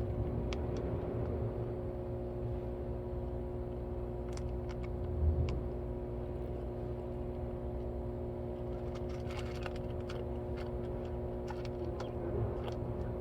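Steady machine hum with a low rumble underneath, and scattered light clicks, a small cluster of them about two-thirds of the way through.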